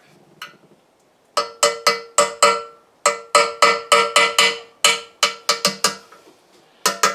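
Steel pin punch struck repeatedly with a hammer against the spanner-holed collar at the end of a KO Lee surface grinder's cross-feed lead screw, loosening it. About twenty sharp metallic taps, roughly four a second in short runs with brief pauses, each ringing briefly.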